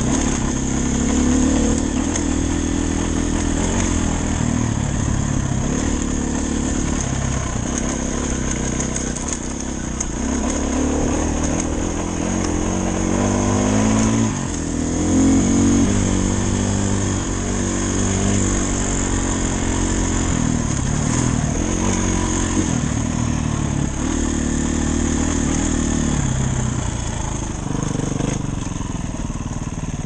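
Dirt bike engine running under way on a trail, the revs rising and falling with the throttle.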